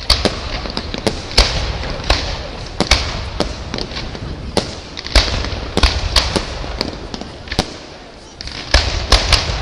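Aerial firework shells bursting in quick, irregular succession: sharp bangs over a low rumble. The bangs thin out briefly about eight seconds in, then a tight cluster of them follows.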